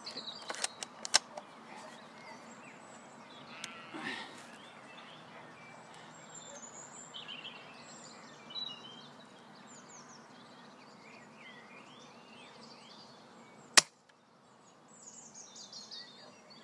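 One sharp shot from a Novritsch SSG24 spring-powered airsoft sniper rifle about fourteen seconds in, the loudest sound. Small birds chirp throughout, and a few light clicks come near the start.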